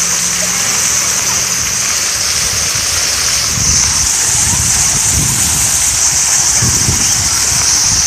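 Park water fountain spraying and splashing steadily into its stone basin, a constant rushing hiss. Low rumbles come in during the second half.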